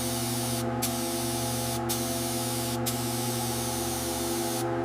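Paint spray gun hissing steadily as it lays on a coat of paint, the hiss cutting out very briefly four times, over a steady hum.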